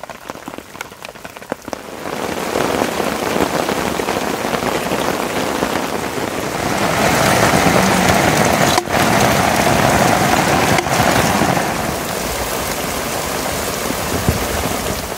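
Heavy rain falling in a steady downpour. It is lighter for the first two seconds, then heavier, and louder still from about seven seconds in.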